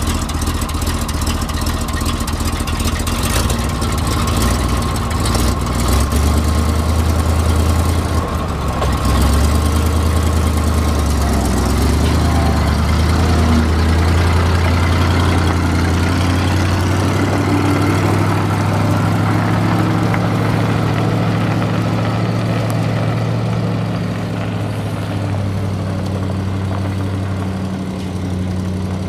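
A 1980 Chevrolet grain truck's gasoline V8 engine running, its note shifting a couple of times as the truck pulls away. The sound grows fainter near the end as the truck drives off.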